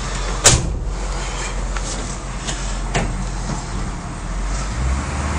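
Chevrolet K5 Blazer's 6.2-litre diesel engine running as the truck moves over rough off-road ground, with a sharp clunk about half a second in and another about three seconds in. The engine note swells near the end.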